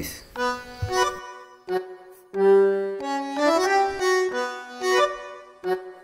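Background music: a melody of held notes following one another, growing louder a little over two seconds in.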